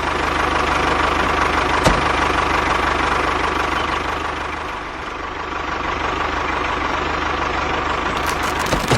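An engine idling steadily, with a single sharp click about two seconds in.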